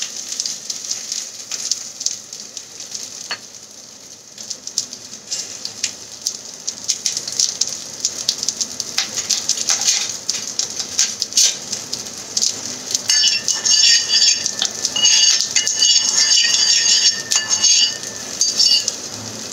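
Okra frying in oil in a kadai: a steady sizzle with scattered crackles, dipping quieter around four seconds in. In the last third a broken, high squeaky tone joins the sizzle on and off.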